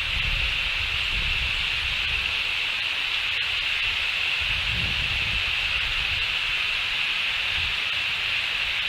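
Outdoor ambience picked up by a nest-camera microphone: a steady high-pitched hiss, with wind buffeting the microphone in low, uneven gusts.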